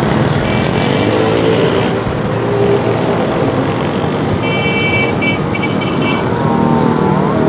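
Street traffic with small motorcycle engines running, as a Honda CD-70's single-cylinder four-stroke engine rides up close. A horn beeps in a string of short toots about halfway through, and a siren begins to wail near the end.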